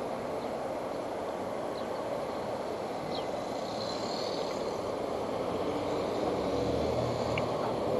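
Steady vehicle noise that grows louder near the end as a low hum comes in.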